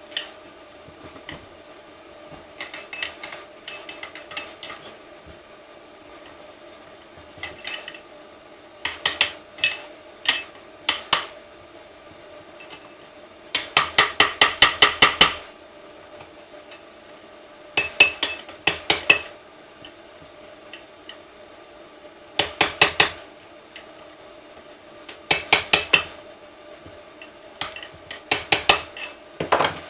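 Hammer striking metal in short bursts of quick blows, several groups of three to nine strikes, the longest run about halfway through.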